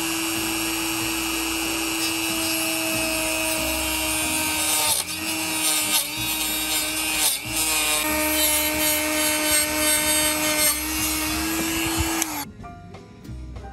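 Dremel rotary tool running at high speed with a steady whine while drilling holes in a door-frame part. The pitch dips briefly a couple of times as the bit loads, and the motor cuts off about twelve seconds in.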